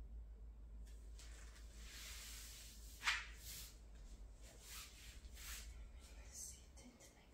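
Faint rustling and shuffling of a person moving about on a foam exercise mat, handling a plastic yoga ring, with one brief sharp sound about three seconds in.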